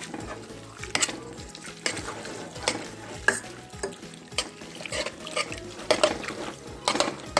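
A spoon stirring macaroni with cheese and milk in a pot, clinking against the pot about once a second.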